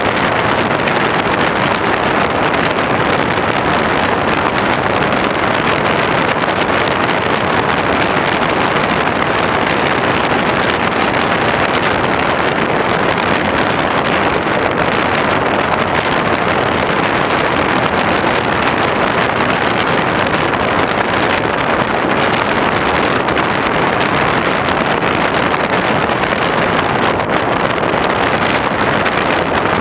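Steady, unchanging rush of wind and propeller noise from an X8 FPV model aircraft cruising, picked up by the GoPro it carries, with a faint thin high tone held throughout.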